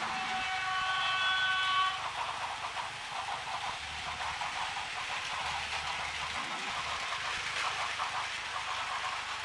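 Battery-powered Plarail toy trains running on plastic track, their small motors whirring and wheels clattering in a steady rattle. A held horn-like chord sounds over it for about the first two seconds.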